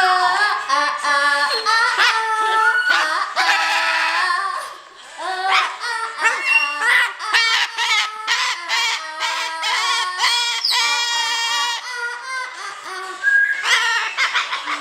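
Pet parrot singing, a run of pitched, warbling melodic notes, with music playing alongside.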